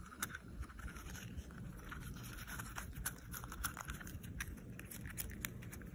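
Faint, irregular clicks and rustles as a dog noses and mouths a plastic Easter egg held in a hand.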